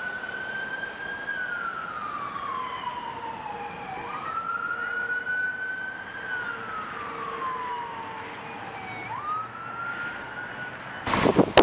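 A siren wailing, its pitch rising slowly and then sliding down in a cycle of about five seconds, repeated twice. Near the end, wind buffets the microphone with a loud rush.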